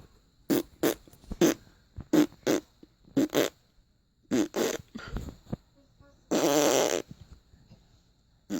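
Imitation fart noises made by a person: a run of short blasts in quick succession, then one longer one about six and a half seconds in.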